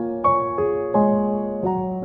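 Slow keyboard music: piano-like notes played one after another, each struck and then left to ring and fade, several overlapping as chords.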